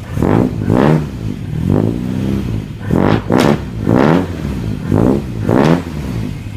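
Toyota 4Runner engine blipped through a new custom external exhaust run up the body: about eight short revs, each rising and falling back to idle, then settling into a steady idle near the end.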